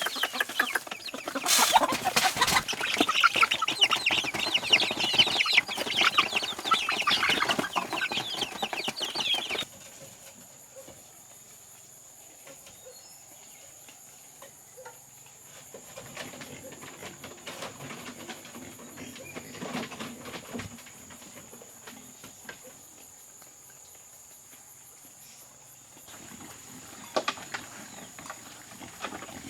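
A flock of chickens clucking busily for the first ten seconds or so, then cutting off suddenly. A much quieter stretch follows with a steady high thin whine and a few faint low sounds.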